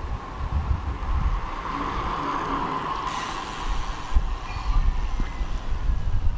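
Wind buffeting the microphone outdoors: an uneven, gusting low rumble over a steady background hiss.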